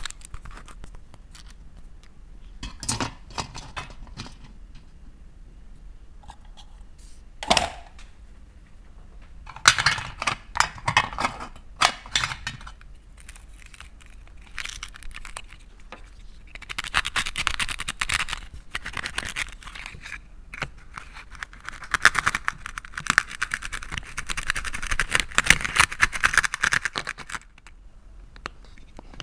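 Hard plastic toy pieces handled with clicks, rattles and a sharp knock about a third of the way in. In the last third comes a long rasping scrape as a serrated plastic toy knife saws at a plastic toy eggplant on a plastic plate.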